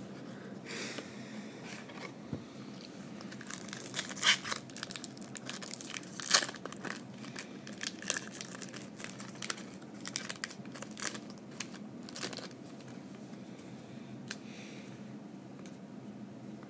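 Foil trading-card pack wrapper being torn open and crinkled: a run of sharp crackles and rips through the middle, the loudest about four and six seconds in.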